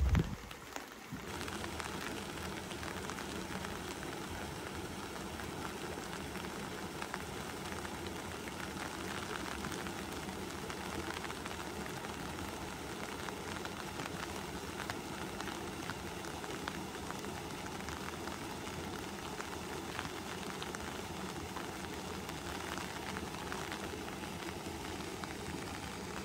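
Steady rain: an even hiss sprinkled with fine crackles, after a brief low thump at the very start.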